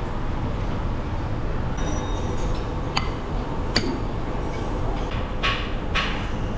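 Steady restaurant din with a low rumble, broken by a couple of sharp clinks of tableware about three and four seconds in, and two short hissing noises near the end.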